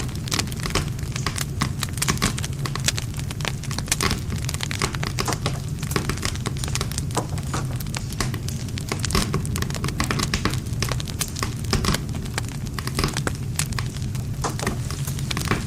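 Wood fire crackling steadily, with many sharp irregular snaps and pops from the burning wood over a low, steady rumble of the flames.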